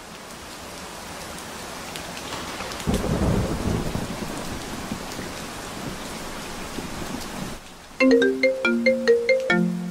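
Steady rain with a low rumble of thunder about three seconds in. Near the end a quick melody of bright, bell-like notes starts suddenly over the rain.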